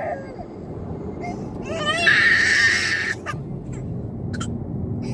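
A young child crying in a moving car: high wails with one loud cry about two seconds in lasting about a second, over the steady low rumble of road noise.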